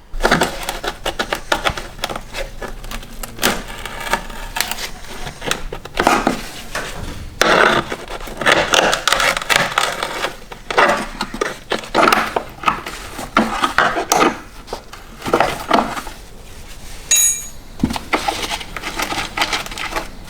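Metal hand tools clicking and clinking in rapid bursts as a 10 mm bolt is worked loose from a rusty bracket, with a brief high squeak about 17 seconds in.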